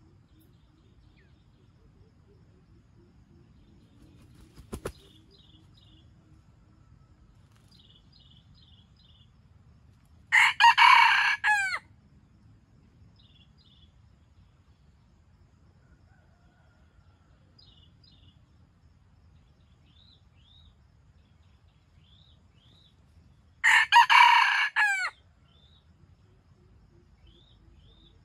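Red junglefowl rooster crowing twice, about thirteen seconds apart; each crow is short, about a second and a half, and broken into a few segments. Faint chirps of small birds in between, and a brief sharp click about five seconds in.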